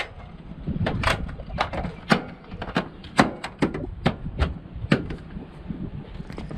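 Irregular sharp clicks and knocks from an ATR72-600 engine cowling panel being pressed and patted by hand, over a low steady rumble.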